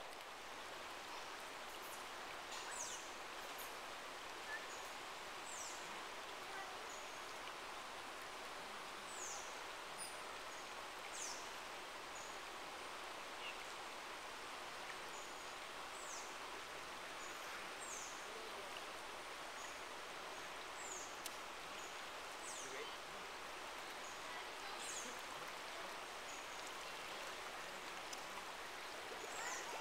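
Steady rush of river water running over rocks, with a bird repeating short, high, falling calls every second or two.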